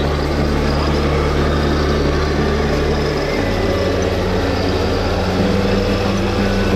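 Electronic diesel-engine sound from RC model trucks' sound modules: a steady low drone that drops and shifts pitch abruptly a couple of times, over the din of a busy exhibition hall.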